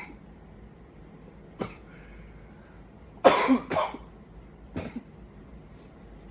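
A man coughing in short separate coughs: a single cough, then a loud double cough about three seconds in, then one more cough.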